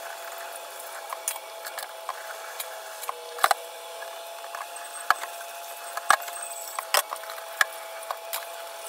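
Kitchen tap water running steadily into the sink while the sink is scrubbed with a sponge, with scattered sharp knocks and clicks, a handful of them loud, from things touching the sink.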